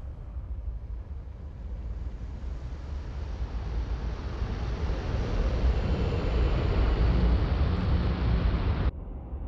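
Deep rumble with a rushing hiss that swells steadily louder over several seconds, then cuts off abruptly about a second before the end, leaving a lower rumble.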